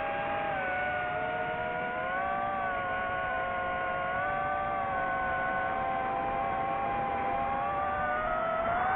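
DJI FPV drone's electric motors and propellers whining in flight: several tones together that drift up and down in pitch with the throttle and rise near the end.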